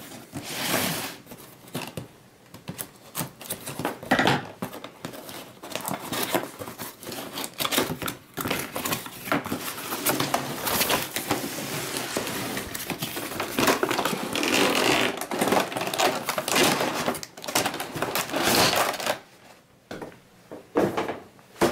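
Cardboard box being cut open with a pocket knife and its lid worked off: dense scraping, rustling and small clicks of cardboard and plastic packaging, going quieter near the end.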